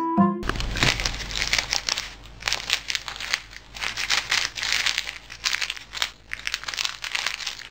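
Plastic bread wrapper crinkling in quick, irregular bursts as a rock squirrel gnaws and tugs at a packaged loaf.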